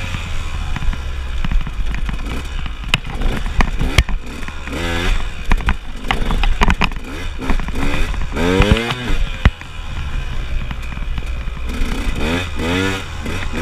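KTM enduro motorcycle engine under way, revving up and falling back several times as the throttle is worked. A few sharp knocks cut through.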